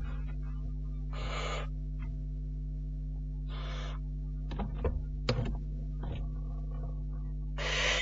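Barn owlet giving three hissing snore calls, each about half a second long, over a steady electrical hum from the nest-box microphone. A few sharp clicks and scrapes fall in the middle, as the owlet grips and climbs the wooden wall.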